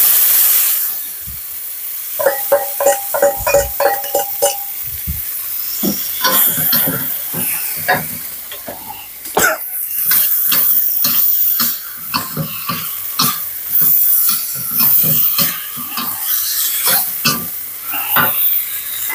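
Seasoned pork belly and yardlong beans drop into hot oil and curry paste in a wok with a burst of sizzling. Steady frying sizzle follows, under a metal spatula scraping and clanking against the wok as the stir-fry is tossed. A couple of seconds in, the spatula gives a quick run of ringing metal clinks.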